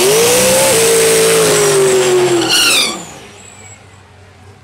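Fox-body Mustang drag car doing a burnout: the engine held at high revs while the rear tires spin and squeal, with a quick rev up near the end before the throttle is lifted about three seconds in and the sound drops away.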